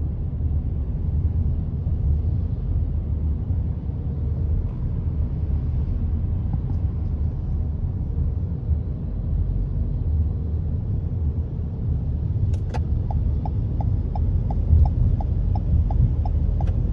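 Steady low rumble of idling car engines in a queue of traffic. A little after the middle come two sharp clicks, then a light, even ticking of about four a second.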